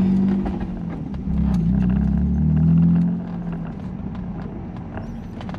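BMW E36 M3's straight-six engine running through a UUC Corsa exhaust as the car drives off, heard from inside the cabin. The engine note swells and wavers in pitch for a couple of seconds, then falls quieter about three seconds in.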